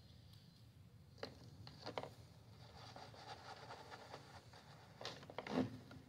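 A few faint clicks and light scraping of a screwdriver and small screws being started by hand into the plastic housing of a Stihl BR700 backpack blower.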